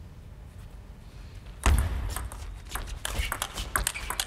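Table tennis serve and rally: a loud thud about a second and a half in, then the quick, sharp clicks of the ball striking rackets and the table, several a second.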